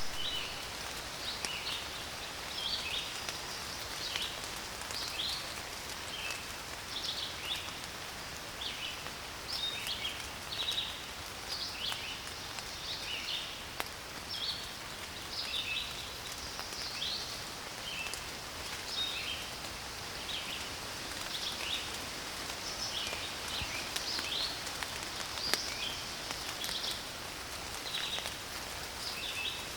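Steady rain falling on a forest, with many birds chirping in short, high calls throughout.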